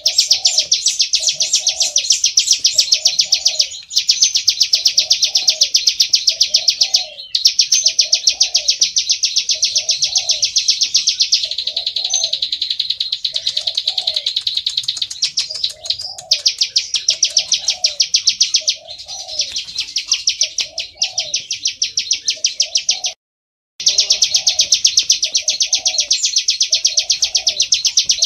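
Plain prinia calling: a loud, rapid, dry trill of high ticking notes that runs on almost without pause, breaking off briefly a few times. A lower note repeats about once a second underneath.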